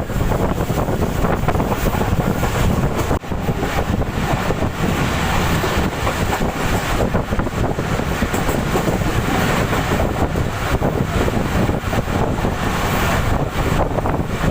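Passenger train passing slowly, its running noise mixed with heavy wind buffeting on the microphone. The level stays steady apart from a brief drop about three seconds in.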